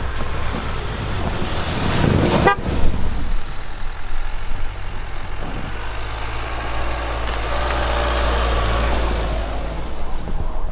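SUV engines pulling up a snow-covered track. First a Land Rover Discovery; then, after an abrupt change about two and a half seconds in, a Dacia Duster whose engine note swells as it climbs toward and past the listener.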